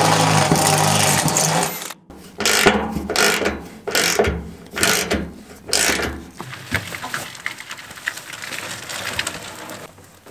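Cordless drill with a step bit running steadily as it bores through the steel wall of a shipping container, stopping suddenly about two seconds in. Then a ratchet wrench tightening a bolt, six or seven ratcheting strokes, trailing off into lighter clicks.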